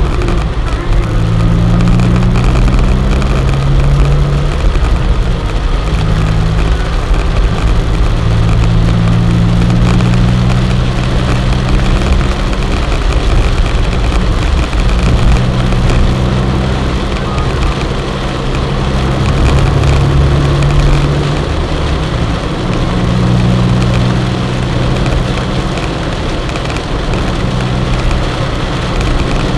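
A car being driven: a steady low engine drone that shifts in pitch every few seconds, over continuous road noise.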